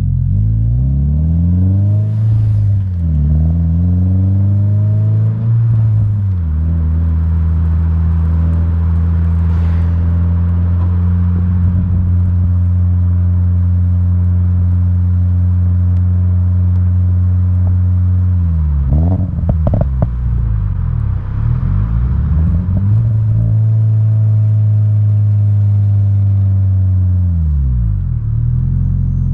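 2022 Subaru BRZ's 2.4-litre flat-four through an Invidia N1 cat-back exhaust, revs climbing and dropping twice as it pulls through the gears, then cruising at steady revs. About two-thirds through, the revs fall with a short burst of exhaust crackles and pops on the overrun, then it pulls up again, holds steady and drops off near the end.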